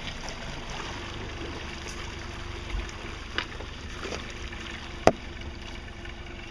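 Steady rumble and rush of a motorboat under way, with a few small knocks and one sharp click about five seconds in.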